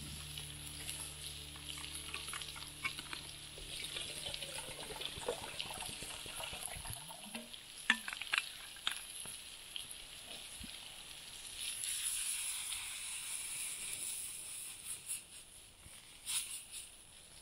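Food sizzling in a frying pan over a small wood fire, a steady hiss with scattered sharp clicks and crackles. The sizzling grows louder about twelve seconds in.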